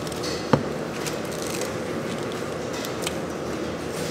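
Steady factory background noise with a faint hum, broken by one sharp knock about half a second in and a fainter click near three seconds.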